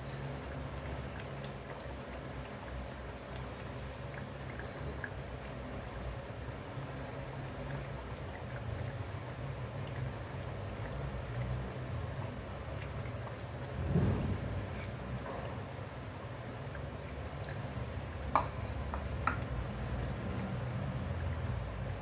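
Thick tomato-and-pea curry gravy bubbling at a boil in a pan, with small popping bubbles. A dull thump comes about two-thirds of the way through, and two sharp clicks follow a few seconds later.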